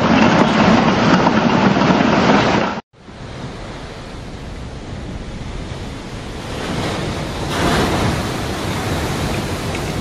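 Storm waves crashing against a seawall in a loud, steady rush that cuts off abruptly about three seconds in. A quieter rush of heavy surf and wind follows and grows louder again about eight seconds in, as breakers pour over a harbour breakwater.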